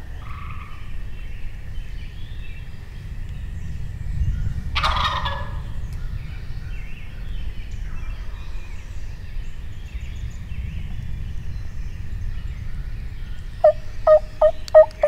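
Wild turkey gobbler gobbling once, loud, about five seconds in, over a low steady rumble. Near the end come four quick turkey yelps.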